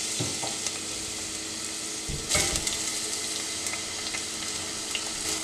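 Sliced onions frying in hot coconut oil in a stainless steel saucepan, a steady sizzle just after they go into the pan. It grows briefly louder a little over two seconds in.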